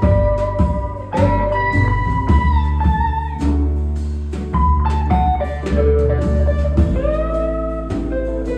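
Instrumental blues-style music: a guitar plays long lead notes that bend in pitch over a heavy bass line and drums.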